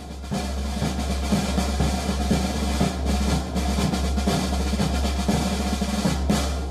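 Background music driven by drums and percussion, a busy snare and bass drum beat over a steady bass line.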